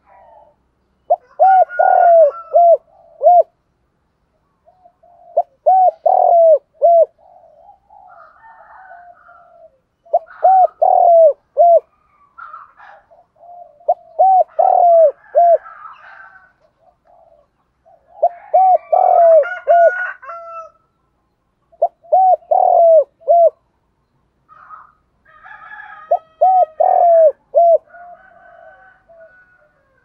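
Spotted dove cooing: phrase after phrase of several short, low coos, repeating roughly every four seconds.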